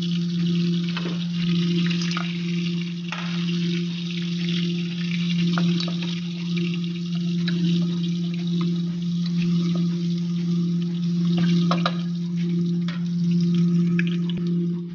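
Chopped onion and garlic sizzling in hot oil in a pot, with a steady crackling hiss and the occasional scrape of a wooden spatula stirring them. A steady low hum runs underneath and is the loudest part.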